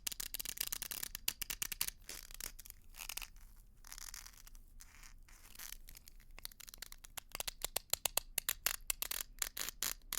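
Ice cracking and being crushed: a dense run of sharp crackles and snaps that eases into a softer grinding hiss around the middle, then louder, sharper cracks in the last few seconds.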